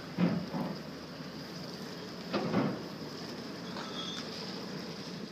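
Small car ferry's engine running steadily close by, mixed with rushing water and wind noise, with two brief louder sounds about a quarter of a second in and about two and a half seconds in.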